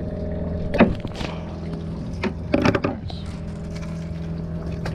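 Boat engine idling steadily, with a few short splashes and knocks about a second in and again near the middle.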